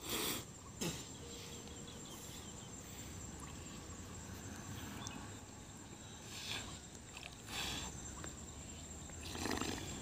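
Water splashing and sloshing a few times from people swimming in a creek, over a faint steady high insect drone.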